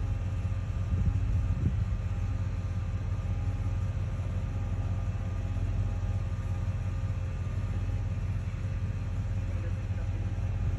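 Bucket truck's engine running steadily at idle to power the boom, a low steady drone with a faint hum over it.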